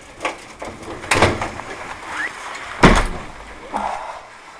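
A door being opened and shut, with a few knocks and rattles and one heavy thud a little past the middle as it closes.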